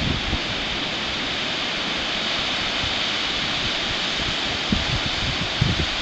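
Surf breaking and washing up a sandy beach, a steady hiss of waves, with a few brief low gusts of wind on the microphone near the end.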